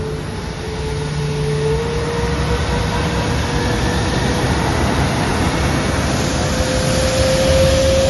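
Airbus A330-900neo jet airliner's Rolls-Royce Trent 7000 turbofans running at high power: a loud, steady rushing noise with a faint whine that slowly rises in pitch.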